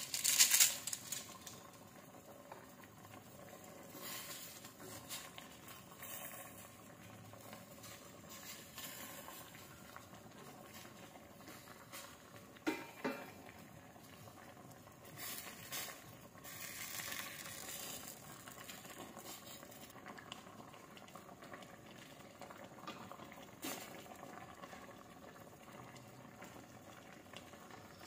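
A stainless steel pot of fish sinigang broth bubbling steadily on the stove. There is a brief loud clatter near the start, and a few knocks and scrapes midway as a wooden spoon stirs the pot.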